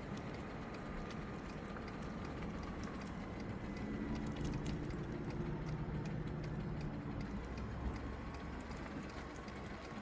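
Street background noise with a motor vehicle passing, its low engine hum rising in the middle and fading again, with faint scattered ticks.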